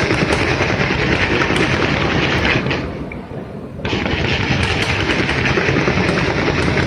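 Fireworks going off in rapid, dense succession at close range, an unbroken run of bangs and crackles. It drops away briefly about three seconds in, then starts again just as thick.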